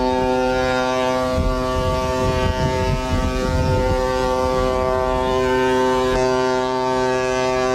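A ship's horn sounding one long, steady blast at a constant pitch.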